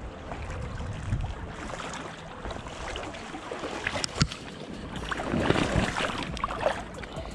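A hooked steelhead thrashing and splashing in shallow river water as it is landed at the bank, with the splashing loudest about five to six seconds in.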